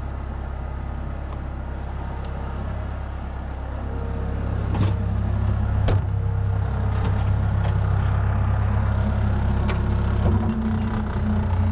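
Diesel engine of construction machinery running steadily at idle, growing louder about four to five seconds in, with a few sharp clicks over it.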